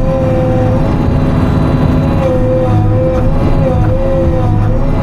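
Timberjack 608 harvester's diesel engine and hydraulics running under load from inside the cab, the engine note dipping and recovering again and again as the machine works a tree. A few faint ticks or cracks sound in the second half.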